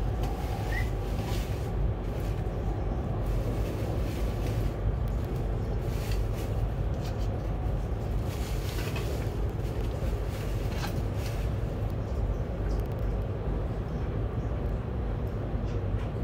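Interior of an ES2G 'Lastochka' electric multiple unit running at speed: a steady low rumble of wheels on rails, with short hissing swells several times.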